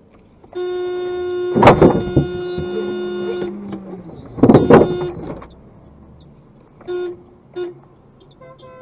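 Car horn honking. A long blast of about three seconds carries a loud, harsh burst, and a second harsh burst follows it. Two short toots come after that, and near the end a second horn with a higher pitch starts sounding.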